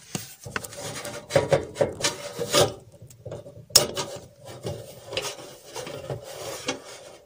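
Handling noise: irregular rubbing and scraping as the camera is moved about and a wooden pull-out shelf is set up, with one sharp click near the middle.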